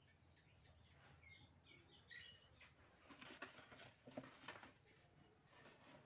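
Faint garden ambience: a few short, high bird chirps in the first half, then some soft rustling and light clicks.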